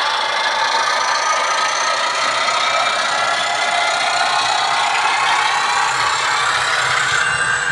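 Model diesel locomotive's MS sound decoder playing a diesel engine running sound through its small speaker. The sound is continuous, thin, with hardly any bass, and its pitch drifts slowly.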